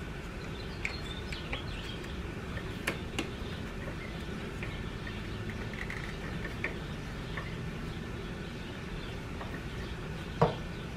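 Faint plastic clicks and handling as the plug on the bottom of a car's plastic coolant expansion tank is fitted, over a steady low hum. A sharper knock comes near the end.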